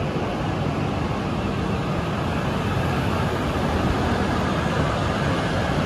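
E6-series Shinkansen cars rolling past the platform as the coupled train pulls away from the station: a steady rumble of wheels and running gear that grows a little louder.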